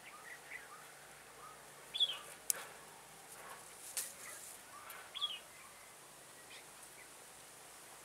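Red-whiskered bulbuls calling: two sharp, high chirps that fall in pitch, about three seconds apart, with softer short notes between them. Two brief clicks come in the middle.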